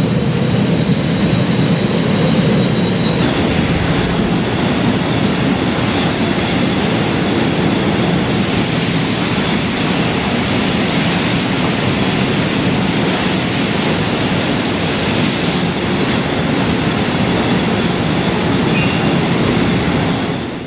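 Loud, steady machinery noise of a copper anode casting line as molten copper pours into the anode moulds, with a thin high whine running through it. The whine jumps up in pitch about three seconds in, and the hiss turns brighter for a stretch in the middle.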